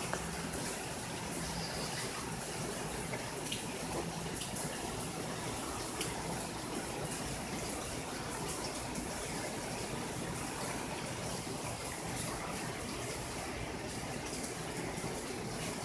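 Steady rain falling on tree foliage, an even hiss, with scattered sharp taps of drops landing close by.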